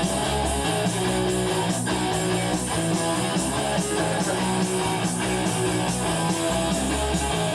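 A rock band playing, with strummed electric guitar over a sustained bass line.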